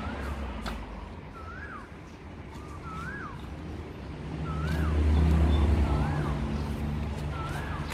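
Low engine rumble from a motor vehicle that swells to its loudest about five seconds in and then eases off. Over it, a bird repeats a short call that rises and then falls, about once a second.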